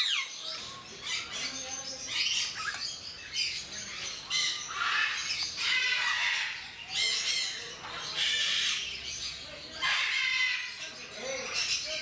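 Timneh grey parrots squawking again and again, harsh rasping calls coming every second or two.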